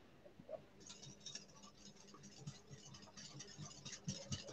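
Wire whisk beating a yogurt mixture in a glass bowl: faint, quick scraping ticks of the wires against the bowl, several a second, starting about a second in.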